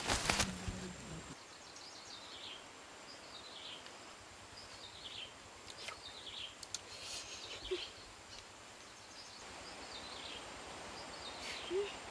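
Outdoor ambience with birds chirping again and again in short falling calls, over a faint hiss and a thin steady high-pitched tone. A few clicks and a low hum come in the first second or so.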